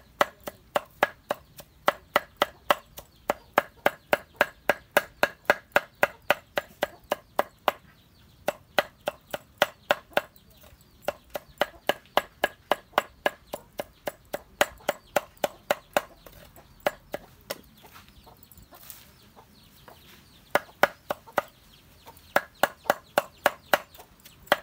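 Knife chopping vegetables on a cutting board in a quick, steady rhythm of about three strokes a second, with a few short pauses and a longer break about two-thirds of the way through.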